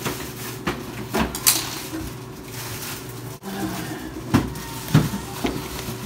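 Scattered light knocks and clatter of things being handled while a refrigerator is cleaned out, a few sharper knocks in the second half, over a steady low hum.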